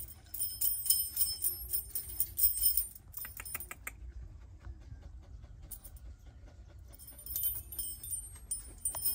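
Metal chain leash jangling and rattling as it is handled. It stops about three seconds in and starts again about two seconds before the end.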